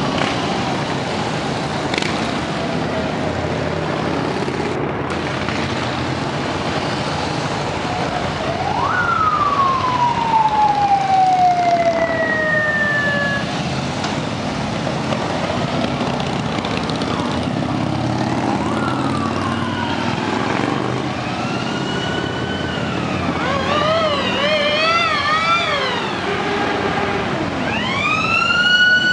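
Harley-Davidson V-twin motorcycles rumbling past one after another at low speed. A siren sounds over them: a slow falling tone about nine seconds in, then rising and falling wails with a quick warble, and a rising wail near the end.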